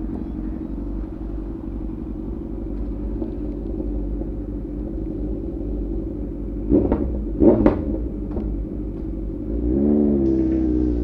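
Motorcycle engine running steadily on the move, with two short loud bursts about seven seconds in and an engine note that rises and falls near the end.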